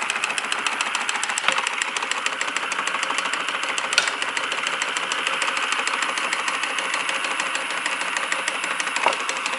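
Antique water-cooled Stirling hot-air engine running steadily, with a rapid, even ticking from its moving parts. A few single sharper knocks stand out, about one and a half, four and nine seconds in.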